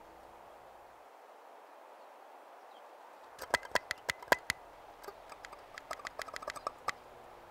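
Sound-design clicks on an experimental film soundtrack: a soft hiss, then from about three and a half seconds in a scatter of sharp, irregular clicks and ticks, some with a short ringing pitch.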